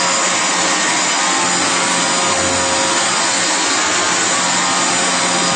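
Dyson DC28 Animal upright vacuum cleaner running steadily, a high motor whine over the rush of air.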